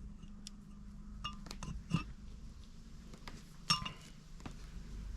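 Small metal parts of a dismantled wiper switch clinking and clicking as they are handled, a few sharp ringing clinks, the loudest about two-thirds of the way in.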